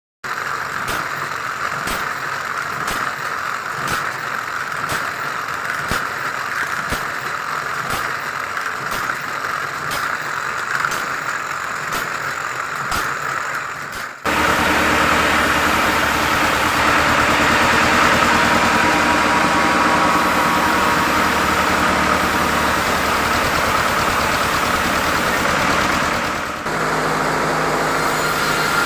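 Sawmill machinery running steadily. For the first half there is a hum with a regular tick about once a second. About halfway it changes abruptly to a louder, fuller engine-like running, and it shifts again near the end.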